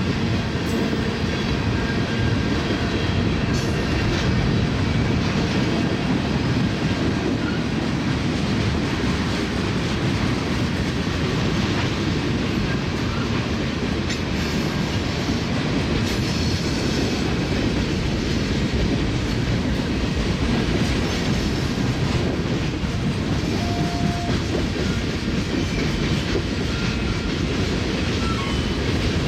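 Freight train rolling past with a steady, loud rumble of its wheels and cars on the rails.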